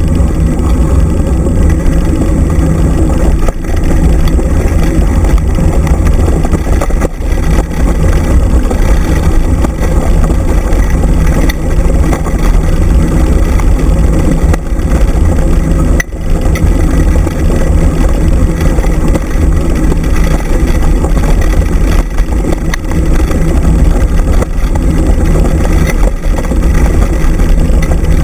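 Wind buffeting the camera microphone and wheels rolling over gravel and dirt as a dog scooter is towed at speed by a husky: a loud, steady rumble.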